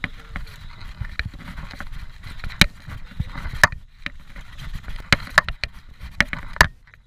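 Scott Genius 740 full-suspension mountain bike descending a dirt trail strewn with dry leaves: tyres rumbling and crackling over dirt and leaves, with sharp clacks and rattles from the bike over bumps, several loud ones from about two and a half seconds in.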